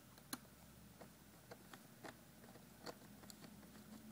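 Faint, irregular small clicks and ticks from a screwdriver turning the last small screw into a laptop screen bezel's plastic.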